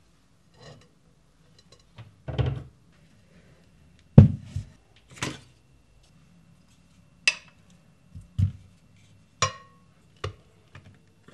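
Dishes and a glass mixing bowl being handled and set down in a kitchen: a run of separate knocks and clinks, the loudest about four seconds in, a few of them with a short glassy ring.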